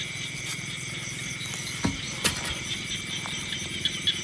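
Night chorus of insects and frogs in a rice field, with a steady high trill throughout. Two sharp knocks come about two seconds in, and near the end a short high call starts repeating about four or five times a second.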